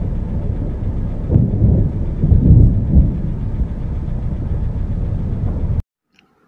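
Thunder rumbling over a steady noise of rain, swelling twice about one and a half and two and a half seconds in, then cutting off abruptly near the end.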